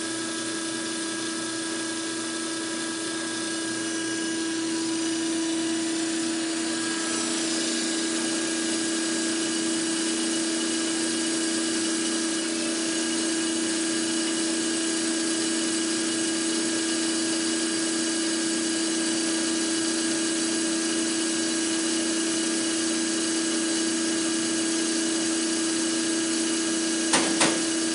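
Pump and electric motor of a diesel fuel filter cart running steadily, a constant hum at one pitch as it pushes fuel through the filters. Two sharp clicks come near the end.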